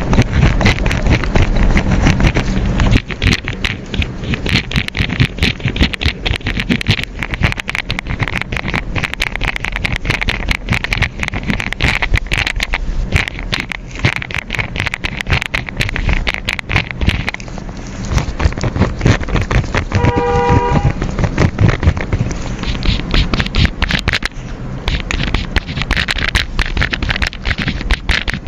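Desk sounds of someone studying: steady scratching with many small clicks and taps over a low hum. A short electronic beep about 20 seconds in.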